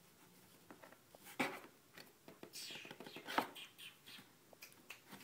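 Faint rustling and scratching of a cardboard cat carrier as a cat shifts inside it and a hand plays with her, with two sharp knocks, about a second and a half in and again about three and a half seconds in.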